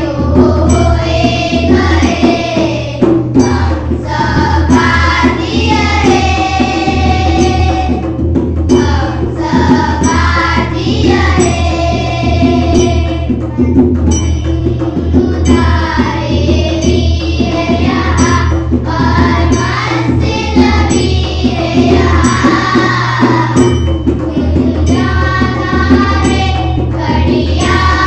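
A group of schoolchildren singing a Hindi poem together in unison, accompanied by hand-played tabla.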